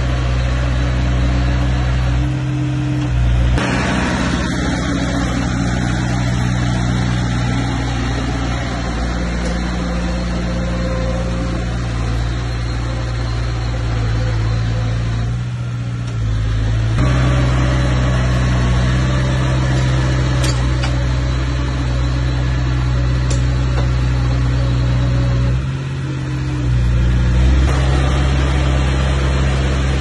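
Bulldozer's diesel engine running steadily under power, its note shifting a few times.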